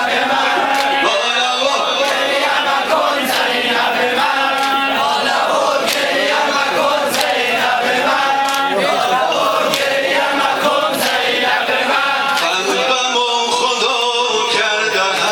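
Crowd of men chanting a Shia mourning lament (noheh) in unison, led by a male reciter (maddah), with sharp slaps of hands on bare chests (sineh zani) about once a second.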